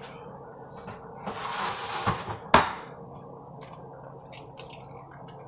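Eggs being cracked into a bowl: a rustling sound, then one sharp knock about halfway through, the loudest sound, followed by a few lighter clicks.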